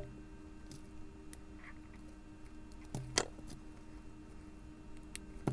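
Faint small clicks and taps of jewelry wire and copper chain being handled, with a few sharper clicks in the second half as flush cutters trim the wire.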